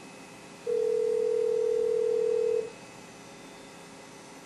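Skype ringback tone for an outgoing call, version 1.3.0.53 on Linux: one steady low tone, about two seconds long, starting under a second in. It plays clean and unbroken, the sign that the freshly restarted Skype is not hitting the CPU-pinning bug that breaks up its audio.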